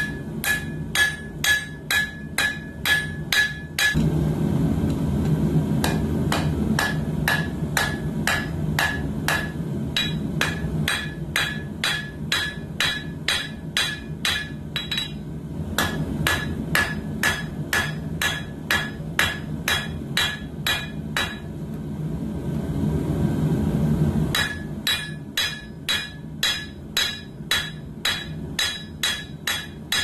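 Hand hammer striking red-hot coil-spring steel on an anvil, forging a knife blade: sharp blows with a ringing note, about two to three a second, in runs. In two short pauses, about four seconds in and past twenty seconds, a steady low roar comes forward.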